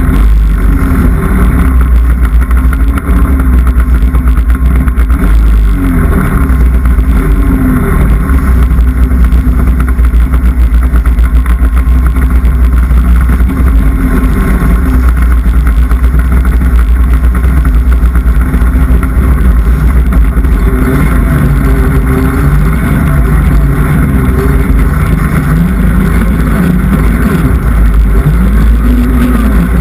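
Polaris snowmobile engine running loud and close throughout, its revs rising and falling several times as the throttle is worked, most often near the end.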